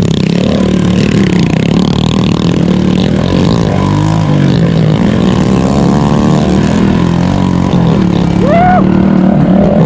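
Honda CG Titan 99's single-cylinder four-stroke engine running hard with its silencer removed, open header pipe only, its pitch rising and falling with the throttle while riding over dirt.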